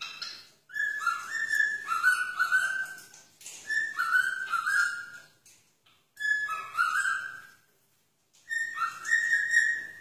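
Cockatiel whistling a tune in four phrases with short pauses between them, each phrase starting on a higher note and stepping down to a lower one.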